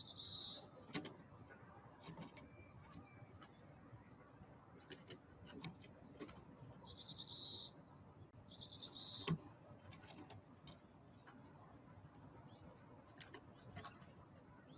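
Wild songbirds at a feeder, faint: short, buzzy high-pitched calls several times, loudest around the middle, with scattered sharp taps.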